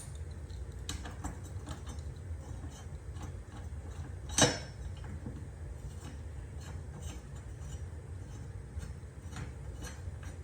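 Wrench working the mower's blade bolt loose: small irregular metal clicks and ticks, with one sharp, louder metal clank about four and a half seconds in.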